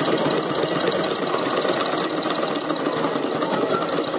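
Sewing machine fitted with a buttonhole attachment, running steadily at a fast, even stitching rhythm as the needle sews the zigzag of a buttonhole.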